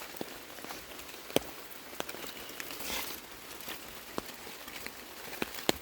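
Scattered drops ticking and pattering at irregular intervals over a faint steady hiss, like water dripping onto leaves.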